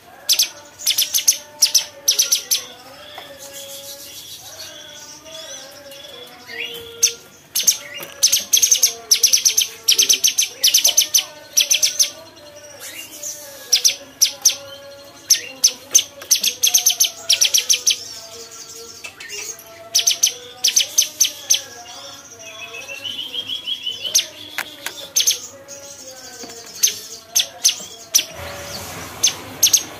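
Caged cucak cungkok leafbird singing: loud bursts of rapid, high, sharp notes repeated again and again, over quieter warbling lower notes. A short rush of noise comes near the end.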